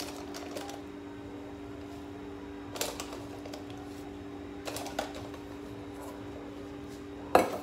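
A spoon scooping dry gram flour into a bowl: brief scrapes and taps about three and five seconds in, and a sharper click near the end, over a steady background hum.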